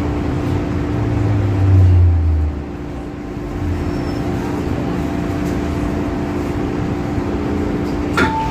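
Cabin noise of an MTR Island Line M-Train braking into a station and coming to a stop, with steady electrical tones and a low hum that swells, then drops away about two and a half seconds in as the train halts. Near the end a click and the start of the door chime beeps.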